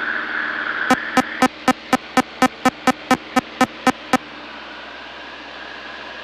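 Cockpit audio warning beeping rapidly, about fourteen short beeps at roughly four a second for about three seconds, over the steady engine and airflow noise inside a Van's RV-6A cabin as the aircraft goes over the top of a loop. The engine and wind noise drop markedly about a second and a half in.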